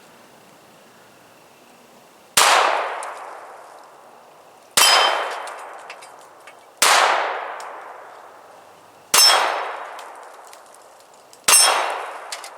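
Five single shots from a Browning Buck Mark .22 LR pistol, fired slowly about every two seconds, each crack followed by a ringing decay lasting over a second.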